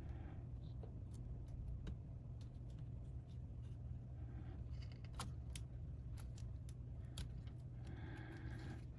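Scattered small sharp clicks and taps of hand tools and small parts on the opened MacBook Pro's internals, over a steady low hum.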